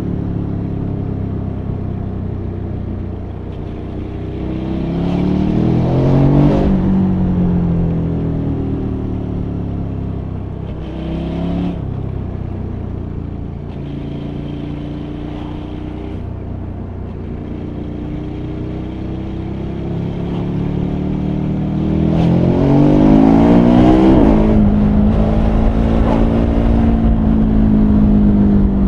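KTM 1290 Super Adventure R's 1301 cc V-twin under way, pulling hard twice through the gears: the pitch climbs and drops back at each quickshifter upshift, about five seconds in and again about 22 seconds in. It settles to a steady cruise near the end.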